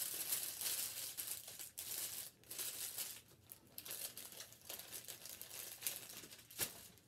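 Packaging of medical supplies rustling and crinkling as it is handled, with a sharp tap near the end.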